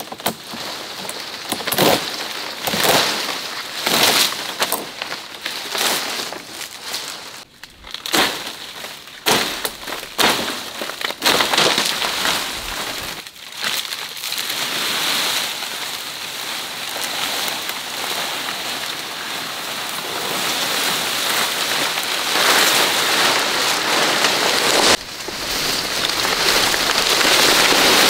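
Large fan-palm fronds rustling and crackling in quick irregular bursts as they are handled. About halfway through this turns into a continuous swishing scrape, the sound of a bundle of fronds dragged over dry leaf litter, growing louder near the end.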